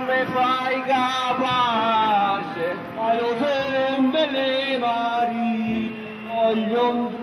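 Live folk music for a ring dance: a voice sings a wavering melody over held low accompanying notes.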